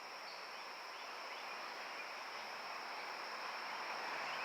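Steady high-pitched insect chorus over a faint, even outdoor background hiss.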